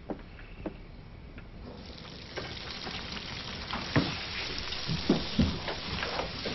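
Food sizzling in a frying pan, starting about two seconds in, with knocks and clinks of utensils against cookware; a few light knocks before it.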